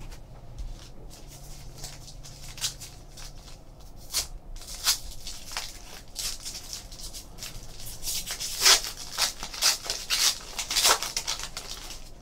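Foil trading-card pack wrapper crinkling and crackling as it is handled and torn open and the cards are pulled out. The crackles are scattered at first and come thickest in a run about two-thirds of the way in.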